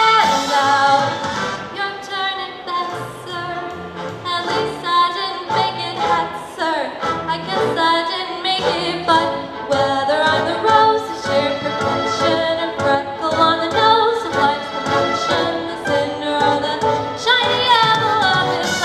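Teenage girl singing a Broadway show tune solo into a microphone, amplified through PA speakers, over musical accompaniment.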